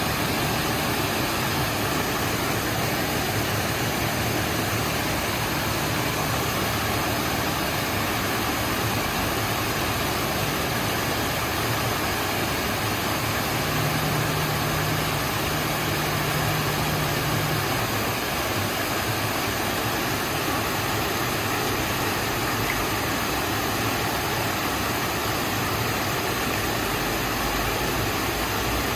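Water pouring over a low river weir, a steady rush of whitewater. A faint low hum joins it for a few seconds about halfway through.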